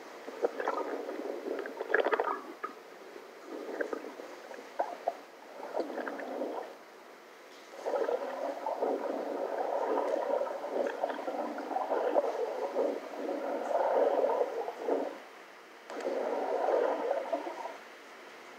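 Underwater recording of water gurgling and bubbling in uneven bursts, the longest lasting several seconds in the middle, played back through small computer speakers so it sounds thin with no bass.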